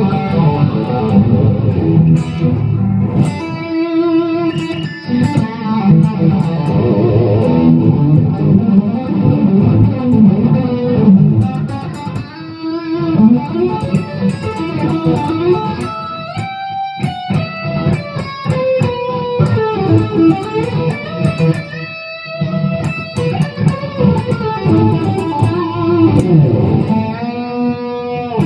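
Epiphone Les Paul Custom electric guitar with Gibson 490 humbuckers being played: a run of chords, riffs and single-note lead lines, with string bends in the middle stretch.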